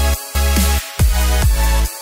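Electronic dance music with a heavy bass beat.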